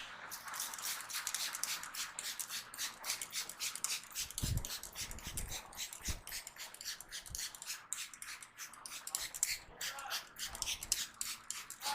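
Hands working over the hair and scalp in a head massage, making a quick, even crackling of several strikes a second that stops just before the end, with a few soft thumps around the middle.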